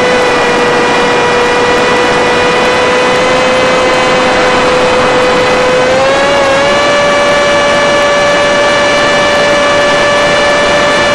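Electric motor and propeller of an FPV Skyfun RC plane whining at steady throttle, over a steady rush of air noise; the pitch steps up slightly about six seconds in as the throttle is raised.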